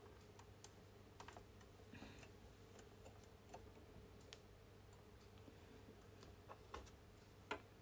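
Near silence with a faint low hum and a few faint, scattered clicks from fingers handling a metal binder attachment on a coverstitch machine.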